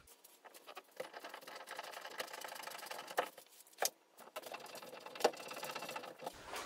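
Screwdriver tip scraping and boring into drywall through the slots of a metal mounting rail. It comes as faint, rapid scratching in two stretches, with a few sharp clicks in between.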